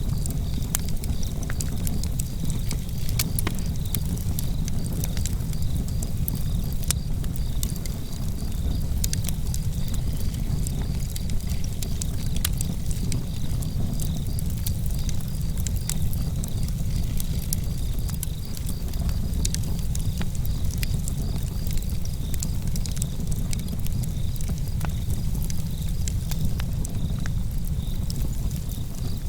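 Wood fire burning in a fireplace: a steady low rumble of flames with frequent small, sharp crackles and pops scattered irregularly throughout.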